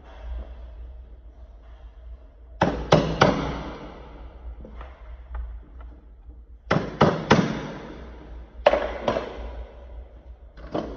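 A mallet striking a mortice jig clamped to a door edge, in groups of two or three sharp knocks spread over the clip, about nine blows in all.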